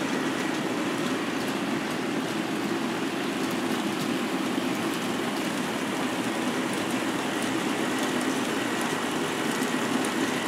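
Several K'nex electric motors running steadily, turning the plastic gears and tape drives of a mechanical robot's control modules: an even whirring hum with scattered faint clicks.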